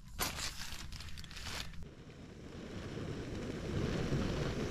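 A few short rustles, then a canister gas camping stove burner running steadily under a frying pan, with a rushing sound that grows louder through the second half.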